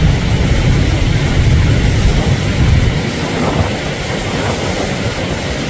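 Wind buffeting the microphone, a gusty low rumble, over a steady rushing roar of turbulent river water below Niagara Falls. The rumble eases about three seconds in.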